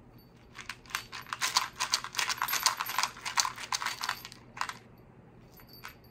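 Jelly beans rattling and clicking against a plastic cup as a puppet's mouth rummages through them. A quick, dense run of clicks lasts about three and a half seconds, followed by a couple of single clicks.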